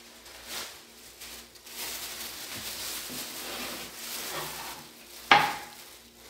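Thin disposable plastic gloves and a plastic bag crinkling and rustling as gloved hands pull apart pork trotters, with one sharp knock or click about five seconds in.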